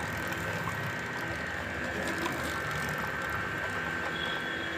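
Hero Splendor motorcycle drive chain running with a steady mechanical sound and no ticking: the chain, freshly oiled with 90 gear oil, has gone quiet.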